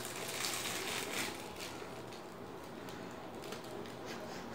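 Clear plastic wrap crinkling and rustling as it is peeled off a small scented candle by hand, in quick faint crackles that thin out after about a second and a half.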